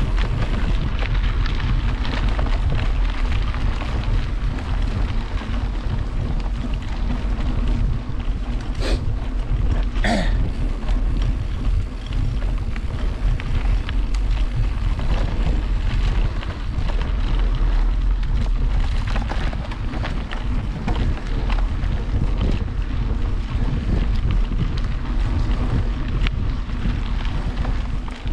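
Wind buffeting the microphone over the rumble and rattle of a mountain bike riding a forest trail, a steady rush. Two short sharp sounds come about nine and ten seconds in.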